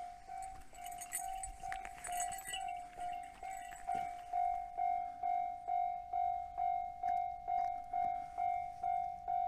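Japanese railway level-crossing warning bell ringing, an even repeated electronic ding about two and a half times a second, sounding because a train is approaching. It gets louder about four seconds in, with some brief rustling and clicks shortly before.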